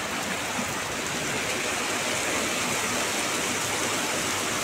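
Heavy rain pouring steadily onto wet pavement and standing water, an even hiss with no single drops standing out.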